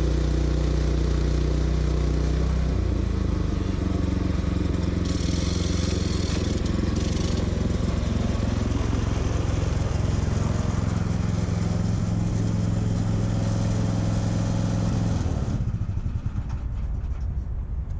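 Portable sawmill's gasoline engine running steadily, its pitch shifting about three seconds in, with a brief hissy brightening a few seconds later; shortly before the end the engine drops to a lower, quieter run.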